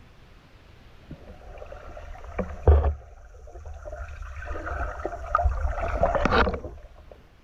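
Water sloshing and gurgling around an underwater camera as a spearfishing diver swims, with a sudden loud burst about three seconds in and a longer stretch of louder churning water that stops before the end.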